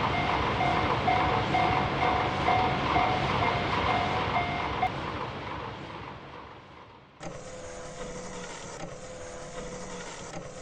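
Railroad level-crossing warning bell ringing about twice a second over the rumble of a passing train. The bell stops about five seconds in and the train noise fades out, and about seven seconds in a steady mechanical hum starts.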